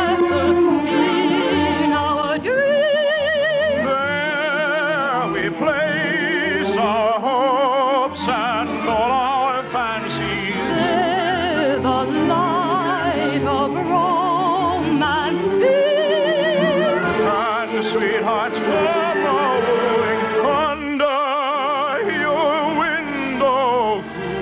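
Operatic-style singing with a wide vibrato over an orchestral accompaniment, heard through the narrow, thin range of an old radio recording.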